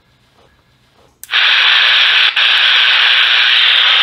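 Hitachi TH-620 pocket transistor radio switching on with a click about a second in, then loud, steady static hiss from its small speaker, dipping briefly once. The volume is stuck at full, which the repairer puts down to failed electrolytic capacitors.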